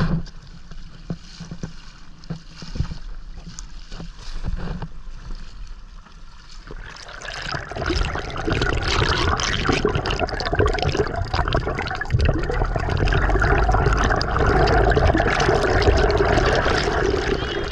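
Water splashing and trickling around a stand-up paddleboard moving through choppy sea. About seven seconds in, it gives way to a louder, steady churning and bubbling as the camera goes under the water beside the board.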